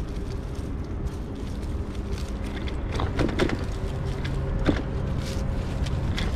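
Mountain bike rolling along a leaf-covered dirt trail: a steady low rumble of tyres and wind on the microphone, with scattered clicks and rattles from the bike over bumps, the sharpest in the second half.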